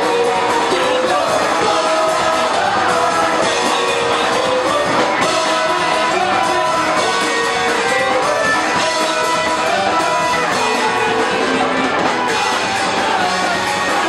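Punk rock band playing live: electric guitar, bass and drums with sung vocals, loud and without a break.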